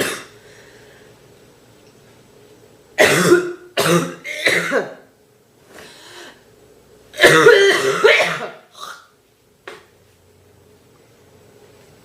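A girl coughing: three quick coughs about three seconds in, a longer bout of coughing around seven seconds in, then a short last cough.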